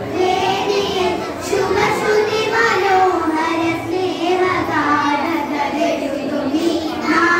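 A group of young girls singing a Malayalam patriotic song together, holding long notes with short breaks between phrases.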